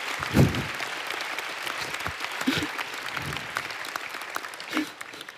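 Congregation applauding, with a few voices calling out; the clapping dies away near the end.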